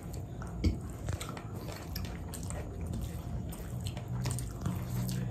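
Close-up eating sounds: chewing with many small wet mouth clicks, and a single knock just under a second in.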